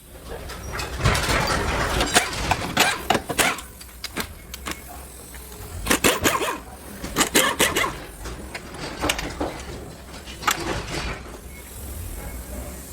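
Workshop clatter of car parts being taken apart: irregular knocks, clanks and rattles in quick clusters, over a steady low hum.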